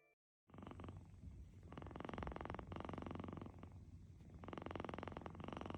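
Sleeping kitten purring: a fast, buzzing rattle that comes in long breaths, running through both the out-breath and the in-breath, twice over.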